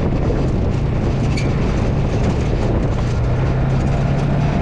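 Polaris RZR 570 side-by-side's single-cylinder engine running steadily, with the buggy's body rattling and clattering as it drives over rough, rocky ground.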